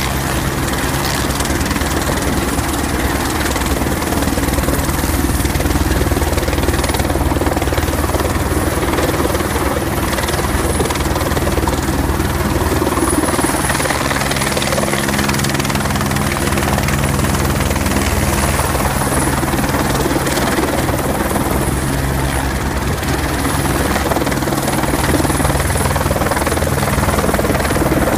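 Single-engine helicopter flying low and close, its main rotor beating steadily with a deep, even throb.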